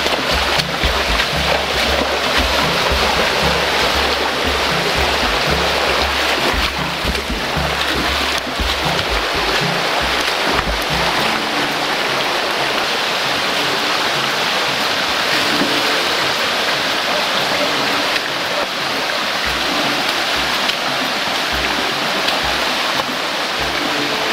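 Rocky river rushing over stones, a loud steady hiss of water, with irregular low thumps during roughly the first ten seconds.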